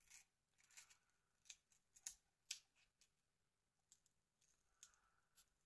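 Faint, scattered small clicks and scrapes, about seven spread over a few seconds, from a small screwdriver working a screw loose in the plastic housing of a Nokia 2720a flip phone.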